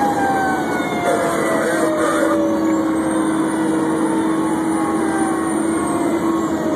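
Fire engine's siren wailing, its pitch slowly falling, with a steady low tone held for several seconds in the middle. The truck's engine and road noise run underneath, heard from inside the cab.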